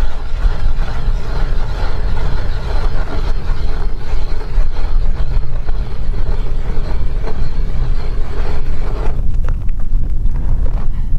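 Wind buffeting the microphone: a loud, gusting low rumble with a rushing hiss over it. The hiss drops away about nine seconds in while the rumble goes on.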